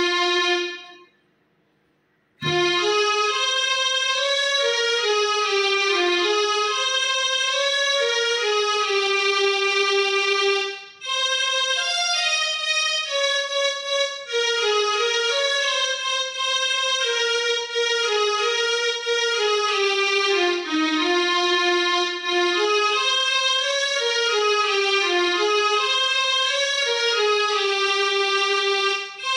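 Mini electronic keyboard playing a single-line melody in held notes. The playing stops for about a second near the start and resumes with a click, with another short break near the middle.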